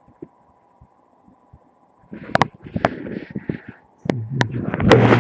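Body sounds picked up by a microphone pressed against a man's chest: a couple of seconds of faint ticking, then muffled coughs heard through the chest as a few short bursts with sharp clicks, then about four seconds in a loud rumble with rubbing and clicking.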